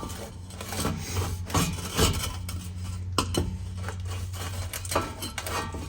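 Steel exhaust pipe clinking, knocking and scraping as it is slid into place and tried against the muffler, with a steady low hum underneath.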